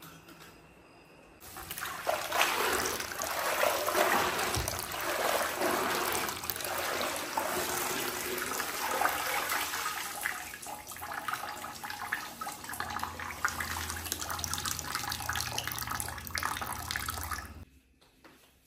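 Water running and splashing. It starts about one and a half seconds in and stops abruptly shortly before the end.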